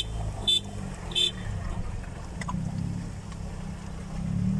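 A vehicle engine running with a steady low rumble, with three short high-pitched beeps in the first second or so.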